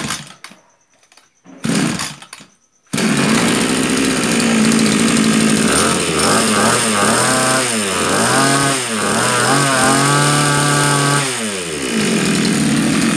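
Taiwanese 26cc two-stroke brush cutter engine (34 mm bore) being pull-started: it fires briefly twice, catches about three seconds in and keeps running. From about six seconds in its speed rises and falls several times, then it settles back to a steady run near the end.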